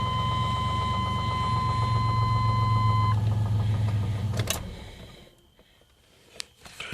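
A 1996 Chevy Blazer's 4.3 V6 idles, then is switched off and runs down to silence about four and a half seconds in. A steady high tone stops about three seconds in, and a few light clicks follow near the end.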